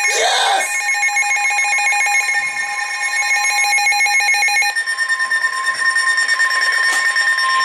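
Emergency Alert System alert tones on a Sage ENDEC: a buzzy, rapidly pulsing electronic tone, which about two-thirds of the way in gives way to a steady single-pitch alarm tone that holds until the voice warning starts.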